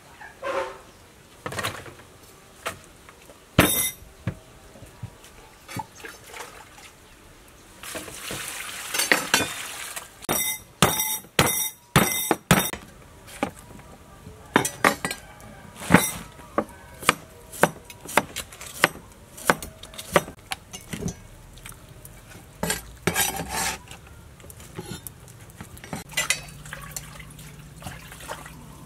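Kitchen knife striking a wooden chopping board: irregular knocks, with a quick run of chopping about ten to twelve seconds in.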